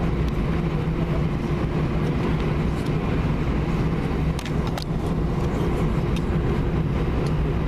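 Steady cabin noise of an Airbus A320 taxiing: a low engine drone with a steady hum over it, and a couple of faint clicks about halfway through.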